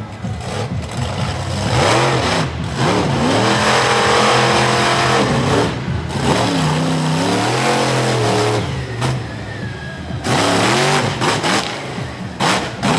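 Bigfoot monster truck's engine revving hard, its pitch climbing and falling again and again, with several brief drops where the throttle is lifted.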